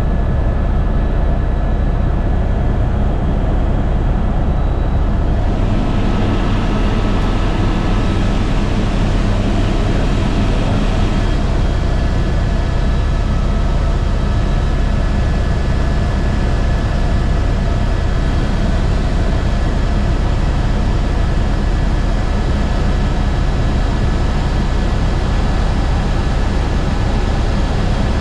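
Airbus H125 single-engine helicopter in flight: a loud, steady low rotor drone with a thin steady whine above it. A rush of higher-pitched noise fills in about six seconds in and stays.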